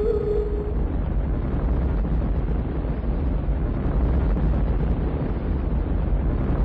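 Deep, steady rumble of a volcanic eruption, heaviest in the low end, without distinct blasts. A held musical tone fades out in the first second.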